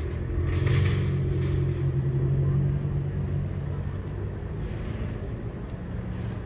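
A motor vehicle's engine running at low speed, a steady low hum that swells over the first few seconds and then eases off.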